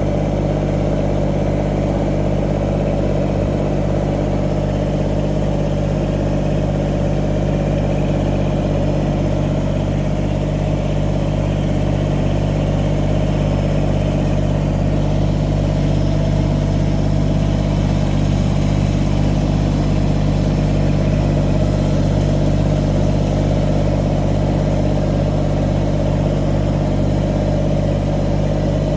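Kubota compact tractor's diesel engine running at a steady speed, an even, unchanging drone.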